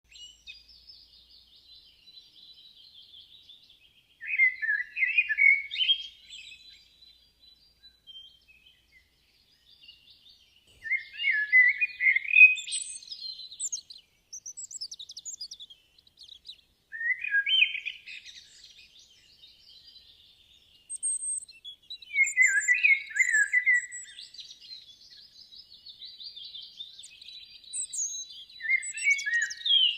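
Small birds chirping and twittering: louder, quick chirp phrases come about every five to six seconds over softer, continuous high twittering.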